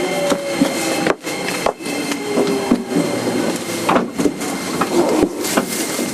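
Interior running noise of a JR 205 series 5000 electric train's motor car as it slows, with the inverter whine having just faded: steady rolling noise broken by frequent sharp clicks and knocks from the car and running gear.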